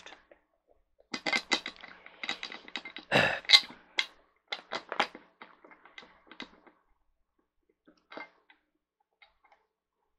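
Metal chair-back bracket clicking and knocking against the seat as it is shifted to line up its screw holes. The clicks come in a quick run for about five seconds, the loudest about three seconds in, with one more small knock near the end.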